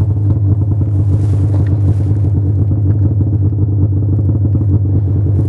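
Snowmobile engine running steadily: a low, even drone that holds without revving.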